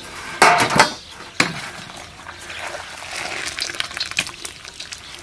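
Blanched turtle pieces being scooped out of a boiling pot with a perforated metal ladle and tipped into a stainless steel tray: water pouring and dripping back into the boiling pot, with metal clinks and clatter, loudest about half a second to a second in and again at about one and a half seconds.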